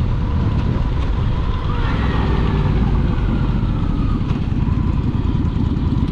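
Motorcycle under way on the road: heavy wind rush over the microphone with the engine running underneath, and a short rising engine note about two seconds in.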